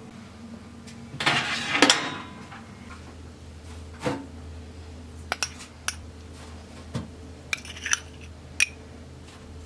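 Dishes and small household objects being handled: a short clatter about a second in, then a scatter of light clinks and taps, over a steady low hum.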